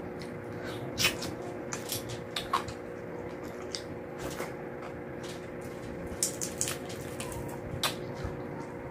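Close-up eating sounds: wet chewing, lip smacks and scattered sharp clicks as adobo mussels, rice and fried milkfish are eaten by hand. A steady faint electrical hum runs underneath.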